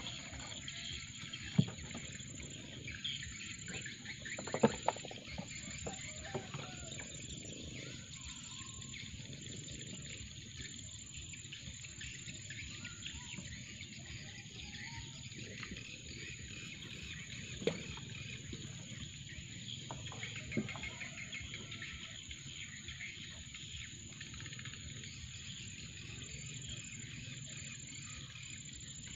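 Birds chirping in a steady background chorus, with a few sharp knocks about 2, 5, 18 and 21 seconds in.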